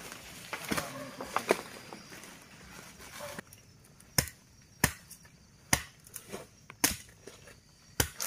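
Machete chopping grass and undergrowth to clear ground, sharp single strikes about once a second from a little past the middle. Before that, brush rustling and crackling as a bamboo pole is dragged through it.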